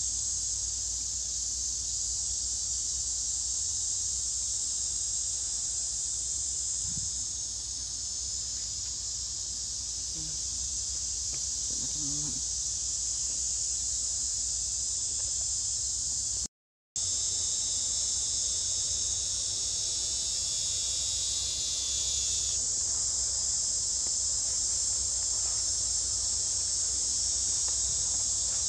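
A dense, steady high-pitched insect chorus. A second, pulsing call joins it for a couple of seconds about twenty seconds in, and the sound drops out completely for a split second about halfway through.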